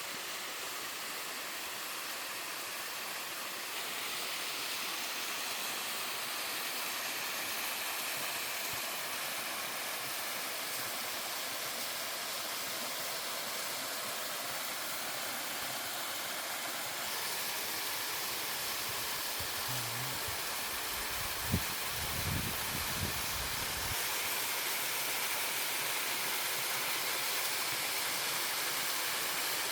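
Three-tier mountain waterfall: steady rushing water whose tone steps slightly brighter a few times. About two-thirds of the way in there is one sharp knock, then a couple of seconds of low rumbling.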